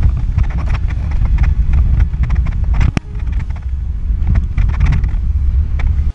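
Pickup truck driving off-road, heard from inside the cab: a loud, low rumble with frequent knocks and rattles as the truck bounces over rough ground, and one sharper jolt about halfway through.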